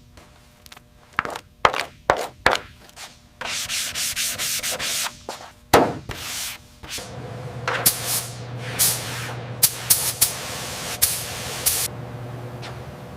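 Hand-work sounds of scraping or sanding: a run of short rubbing strokes, then a sharp knock about six seconds in. After the knock comes a steady low hum with more strokes over it.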